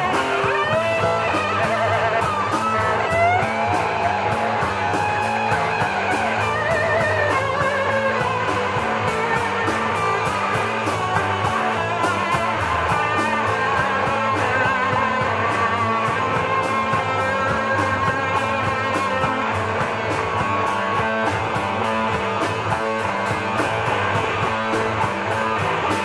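Live rock band playing electric guitars and drums, with a lead line bending and wavering in pitch through the first several seconds and steady cymbal strokes throughout.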